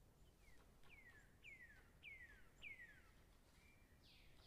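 A bird singing faintly: a run of about five whistled notes, each sliding down in pitch, about half a second apart, followed by broader, rougher downward notes near the end.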